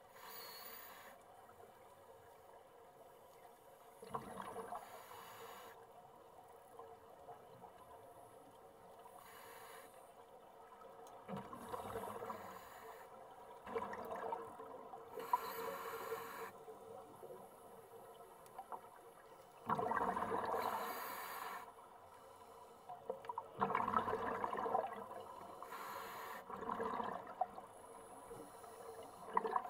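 Scuba regulator breathing underwater: a thin hiss on each inhale, then a louder rush of exhaust bubbles on each exhale, repeating every four to six seconds.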